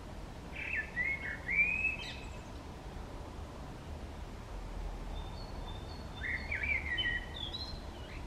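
A male common blackbird singing: two fluting, warbled phrases about four seconds apart, the second with thin high notes before it and a high twitter at its end, over a faint low rumble.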